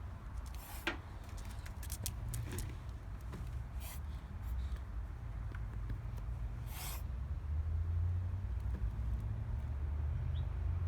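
A dog wheezing: a steady low rumbling breath, with three short, sharp hissing breaths among it.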